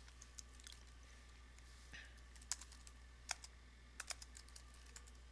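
Faint, unevenly spaced keystrokes on a computer keyboard, about a dozen separate clicks, over a low steady hum.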